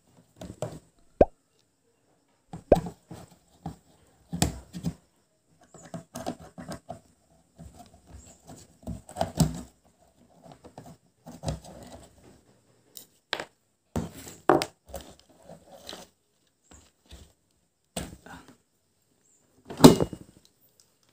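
Screwdriver backing the screws out of a speaker box's amplifier panel, with irregular small clicks, scrapes and handling noises and a few sharp knocks. The loudest knock comes near the end as the panel is worked free of the cabinet.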